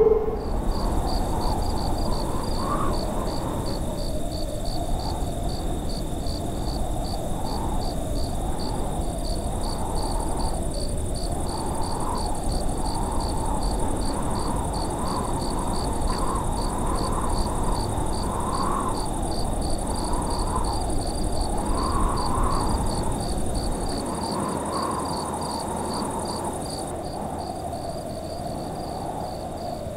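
Crickets chirping steadily, about two to three chirps a second, over a rushing noise that swells and fades. A low rumble under it drops away near the end.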